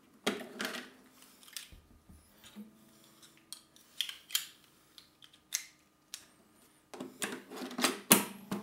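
Plastic clicks and taps from the battery hatch on the side of an acoustic-electric guitar being handled, opened and closed: scattered sharp clicks, then a quick cluster near the end with the loudest click just before it stops. A faint steady low ring from the guitar lies underneath.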